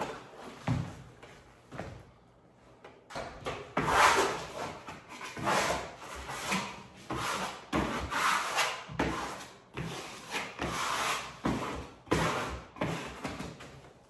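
Wallpaper being rubbed smooth against a wall in repeated strokes, about one a second, the strokes louder from a few seconds in.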